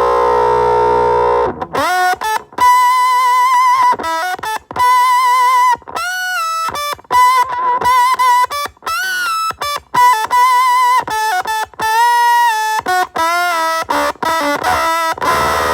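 Electric guitar played through an Avedissian octave fuzz pedal: a held fuzzy chord, then a run of single lead notes with bends and vibrato, each stopping sharply. Dense chords return near the end.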